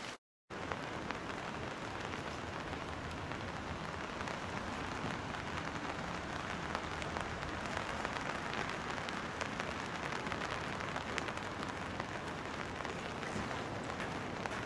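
Steady rain falling on surfaces: an even hiss with many small drop ticks, after a brief dropout just at the start.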